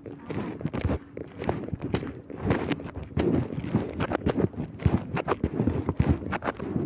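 Irregular knocks, clicks and rubbing of fabric on the microphone: handling noise from a phone held against clothing.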